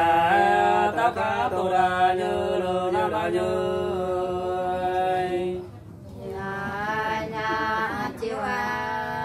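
Unaccompanied hát sli, the Nùng folk singing of Lạng Sơn: long, slowly wavering held notes in a drawn-out phrase. The phrase stops about six seconds in and a new one starts half a second later.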